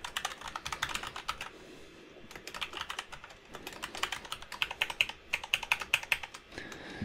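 Typing on a computer keyboard: quick runs of keystroke clicks, with a short pause about two seconds in.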